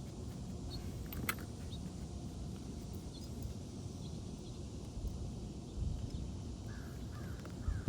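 Steady low outdoor rumble with a single faint click about a second in, and a few short faint bird calls near the end.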